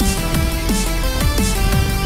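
Electronic dance music with a heavy bass and short falling pitch swoops repeating about three times a second.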